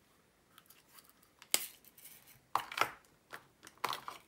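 A few sharp, light plastic clicks and rustles: diamond painting drill containers and bags being handled as the next colour of drills is got out. The loudest click comes about a second and a half in, with smaller clusters of clicks near the end.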